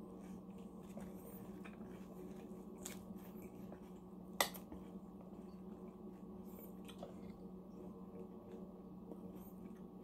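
Close-miked eating sounds: soft chewing and mouth clicks, then a metal spoon scooping minced pork filling onto a lettuce leaf, over a steady low hum. One sharp tap stands out about four and a half seconds in.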